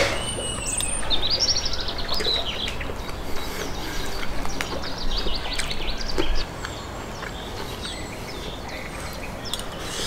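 Birds chirping and singing in quick series of rising and falling notes, with a few short clicks of a metal fork against a plate while eating.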